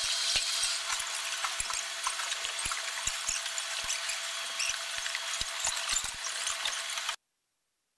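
Aircraft assembly-hall background noise: a steady hiss with irregular clicks and clatter of hand tools and parts being handled. It cuts off abruptly about seven seconds in.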